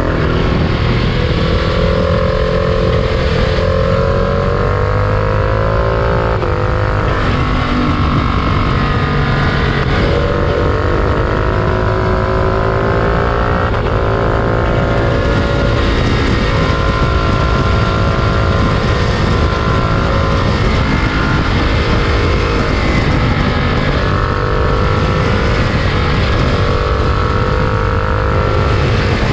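Freight train running: a loud, steady rumble with several tones that slowly drift up and down in pitch.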